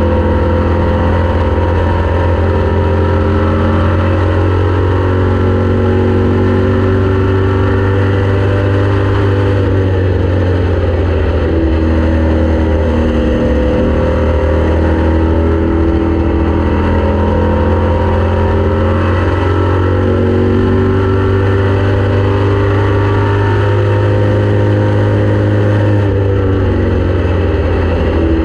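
Race car engine running hard and continuously, its pitch dipping and climbing back every several seconds as the revs fall and rise, over a heavy steady low drone.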